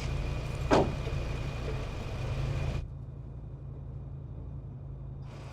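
A car engine idles with a steady low rumble, and a car door slams shut about a second in. About three seconds in, the sound turns dull, leaving only the low hum.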